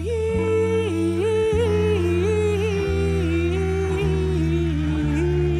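A male singer holding out the last word of a sung line in one long note with small runs and wavers in pitch, slowly sinking, over a backing track of held low chords.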